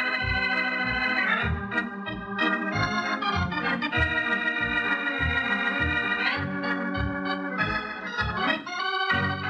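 Organ music playing the closing theme of the radio broadcast: long held chords that change a few times, over a steady low pulse of about two beats a second.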